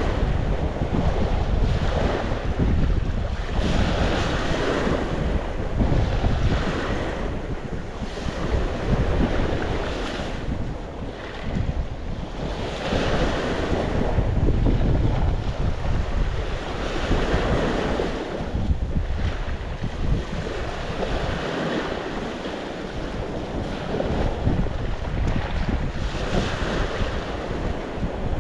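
Sea waves washing onto the shore in irregular surges every few seconds, with wind buffeting the microphone as a low rumble underneath.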